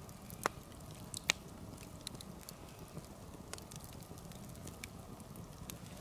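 Log campfire crackling, with scattered sharp pops of burning wood.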